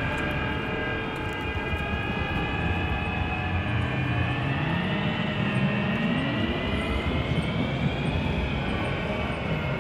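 Electroacoustic music: a dense, engine-like rumble under several held high tones that drift slowly in pitch, with a low tone that sweeps down and back up about midway.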